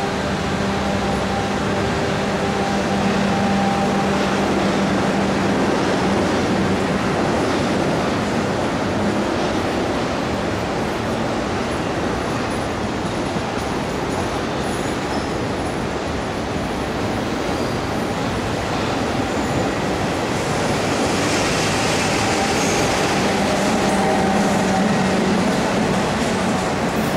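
CPTM 1600 series electric multiple-unit train pulling out of the station and gathering speed past the platform: a continuous rumble of wheels on rail. A steady low motor hum is heard at the start and again near the end.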